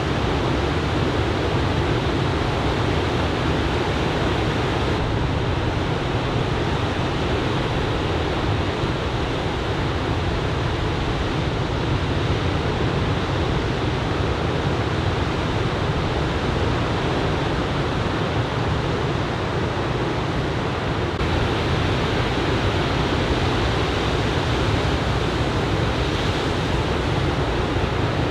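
Ocean surf from a typhoon swell breaking on a sandy beach: a steady, unbroken wash of noise.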